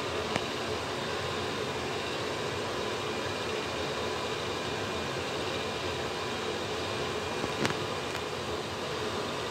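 NuTone ceiling exhaust fan running, a steady whir of moving air with a faint hum in it. A light click sounds shortly after the start and another near the end.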